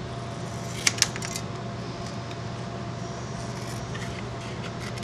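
Light handling of a clear plastic sheet and template: a few sharp clicks and taps about a second in, over a steady low hum.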